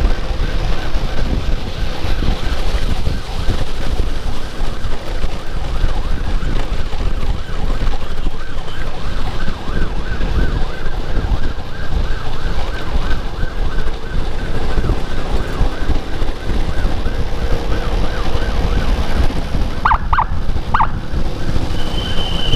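Emergency siren sounding with a fast, evenly repeating pulse, about three a second, over a heavy low rumble of wind and road noise from a moving motorcycle. Near the end, a few short sharp blips cut through.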